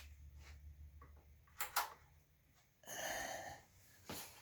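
Quiet room with two sharp clicks close together about a second and a half in, a breathy exhale shortly after, and another click near the end.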